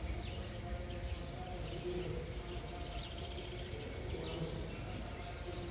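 Several birds chirping in a morning chorus, short quick falling notes with a brief rapid trill about three seconds in, over a steady low background hum.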